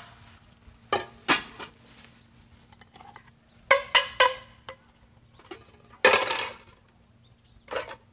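Metal cooking pot and lid clanking as they are handled: two clinks about a second in, three more around four seconds, and a brief plastic-bag rustle about six seconds in.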